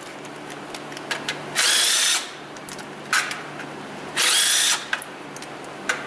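Cordless power tool spinning out transmission oil pan bolts in three short bursts, with small clicks between them.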